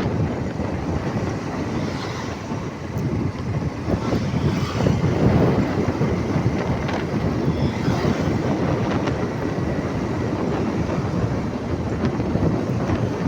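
Steady vehicle rumble with wind buffeting the microphone.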